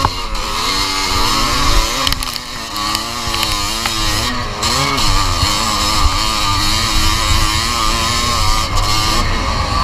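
1981 Yamaha YZ250's two-stroke single-cylinder engine revving up and down again and again as it is ridden hard over a dirt motocross track, heard from a camera on the bike. Wind rumbles on the microphone underneath.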